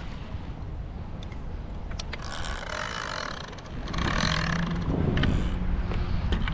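An engine running with a steady low hum that grows louder about four seconds in.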